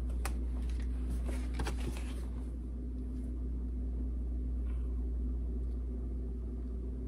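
Steady low hum of room background noise, with a few faint clicks and rustles in the first two seconds as a canvas painting is handled.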